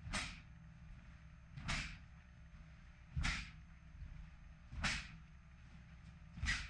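Five short, sharp swishes evenly spaced about a second and a half apart, one with each technique of an ITF Taekwon-do pattern performed in uniform, over a steady low hum.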